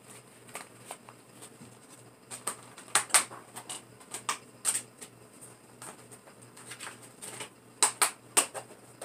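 Scattered clicks and clacks of plastic Blu-ray cases being handled and set down, with the sharpest knocks a few seconds in and again near the end.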